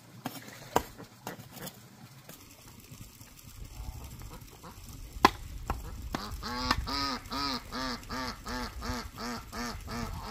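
Domestic waterfowl calling in a steady run of repeated calls, nearly three a second, starting about six seconds in. Before that, a few sharp knocks, the loudest about five seconds in.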